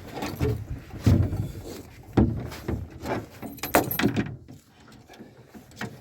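Clunks and metallic rattles of gear being handled in a small boat, several irregular knocks in the first few seconds, quieter near the end.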